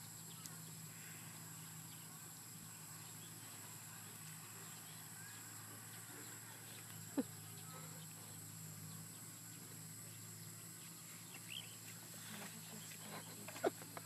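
Quiet rural field ambience: a steady high insect drone over a low hum. A brief rising squeak comes about seven seconds in, and a short sharp sound comes just before the end.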